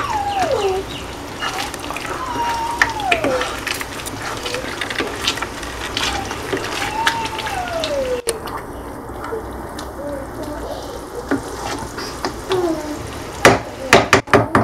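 Wooden spoon stirring a thick cream, pesto and tuna sauce in a frying pan: wet sloshing and light scraping with scattered clicks. A cat meows three times, each a falling call about a second long. Near the end comes a quick run of sharp knocks, the loudest sound here.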